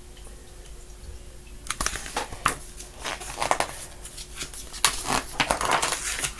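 Paper rustling and crinkling as the pages of a picture book are handled and turned, starting about two seconds in as a run of irregular rustles and scrapes.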